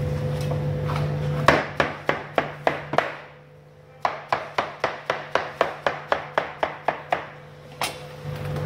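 Large kitchen knife chopping watermelon on a plastic cutting board in quick strokes, about four a second: a run of six, a short pause, then about a dozen more. A steady low hum sits under it at the start and again near the end.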